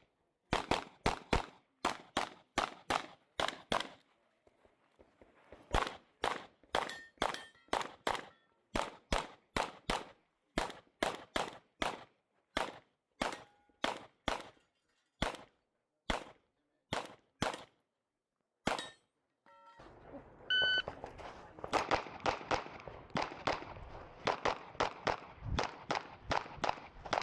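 Rapid 9mm pistol fire from a Glock 17 Gen 5, shots coming in quick pairs across two strings, with short metallic rings after some hits, as on steel targets. About twenty seconds in, a shot timer beeps once and a new string of shots follows about a second later.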